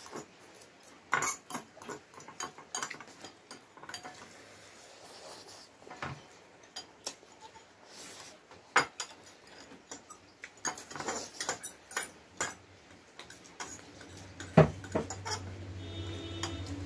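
Forks and spoons clinking against ceramic bowls while Maggi instant noodles are slurped and chewed, with a louder clatter about three seconds before the end. A steady low tone comes in near the end.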